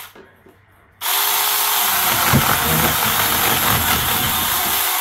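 Saker cordless mini chainsaw cutting through a frozen goat carcass. A first run dies away at the start; about a second in the saw starts again and runs steadily for about four seconds, with a rough low chatter in the middle as the chain bites into the frozen meat and bone.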